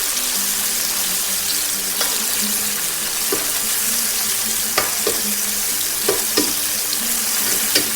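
Chopped chili sauce and doubanjiang sizzling in hot oil while being stir-fried: a steady frying hiss, with a few sharp clicks of the stirring utensil against the pan.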